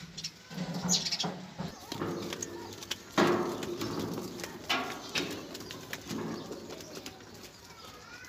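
A run of low animal calls, several in a row, with the loudest starting suddenly about three seconds in.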